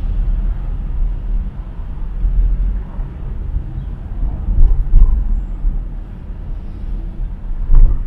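A car driving through city traffic, heard from inside the cabin: a steady low road-and-engine rumble, with a couple of brief thumps, about five seconds in and again near the end.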